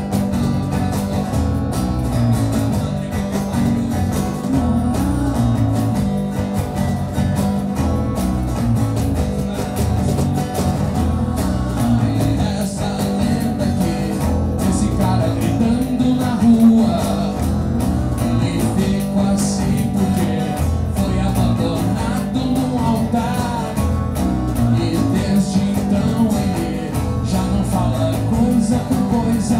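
Acoustic band playing a blues-rock song: acoustic guitar strumming under a male lead vocal, with a cajón keeping the beat.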